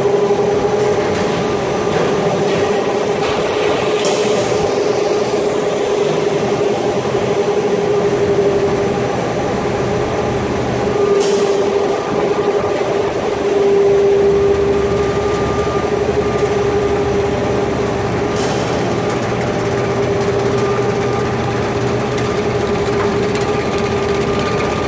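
Snack-extrusion and frying line machinery running steadily: electric motors and gear drives of the extruder and conveyors make a constant drone with a strong steady hum. Three short hisses come about seven seconds apart.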